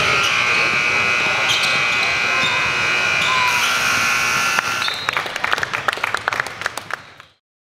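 Gym scoreboard buzzer sounding one steady, held tone for about four and a half seconds over court noise. After it stops comes a quick run of sharp knocks and claps, and then the sound fades out.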